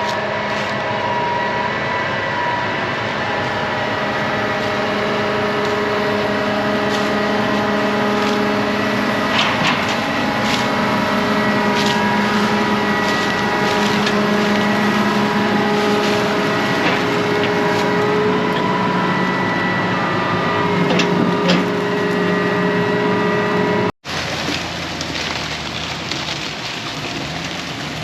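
Farm vehicle engine running steadily with a steady whine over it and a few scattered clicks. About 24 seconds in the sound drops out for an instant, then carries on noisier and rougher.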